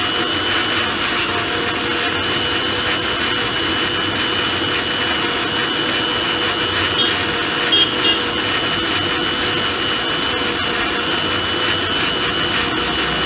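Electric blender running steadily at full speed, churning a banana milkshake in its plastic jar: an even motor whir with a steady high whine over it. A couple of brief clinks about eight seconds in.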